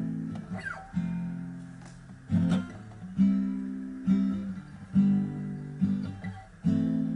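Acoustic guitar strumming chords, an instrumental passage between sung lines; each chord is struck sharply and left to ring for a second or so before the next.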